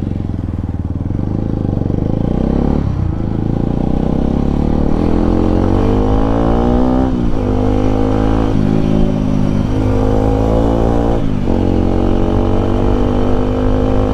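Bajaj Pulsar RS 200's single-cylinder engine through its stock exhaust, pulling under acceleration. Its pitch climbs and then drops at each upshift, about three times.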